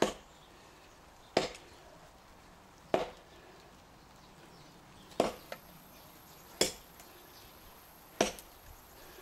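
Cold Steel Trail Hawk tomahawk chopping into a hard, seasoned elm log: six sharp strikes, roughly one every second and a half, with a longer pause between the third and fourth.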